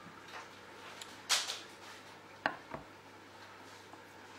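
Chef's knife cutting through a roll of filled semolina pastry dough onto a wooden board: a short swishing slice about a second in, then two sharp taps of the blade on the board shortly after.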